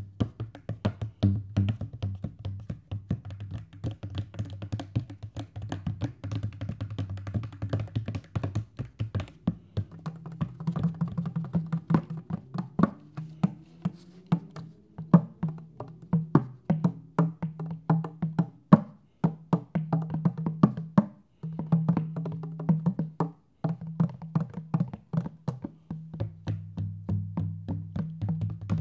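Hand drum played with fast, dense finger and palm strokes over a low ringing drum tone, with a short rising bend in pitch about halfway through. The playing breaks off for a moment twice in the last third.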